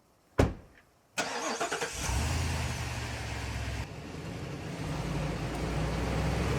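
A single thump, then a pickup truck's engine starting about a second in and settling into a steady idle.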